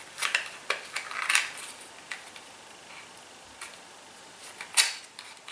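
Handling noises from a small cardboard product box being turned over in the hands: a few short clicks and rustles in the first second and a half, then one sharper click about five seconds in.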